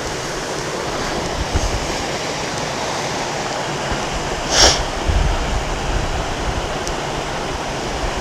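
Fast-flowing creek swollen with snowmelt and rainwater: a steady rush of water. A brief sharp sound cuts in about four and a half seconds in.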